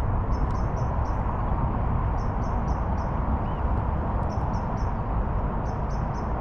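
Wind buffeting the microphone, a steady rumble that is the loudest thing throughout. Over it a small bird sings short, high, repeated notes in runs of four or five, about every second and a half.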